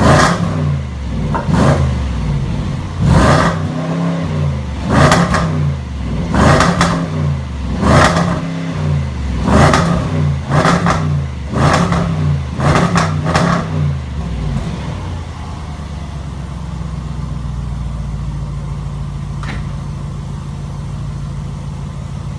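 Supercharged 5.0-litre V8 of a 2016 Range Rover Sport through its stock exhaust, blipped about ten times in quick succession, the revs rising and falling roughly every second and a half. About fifteen seconds in it settles to a steady idle.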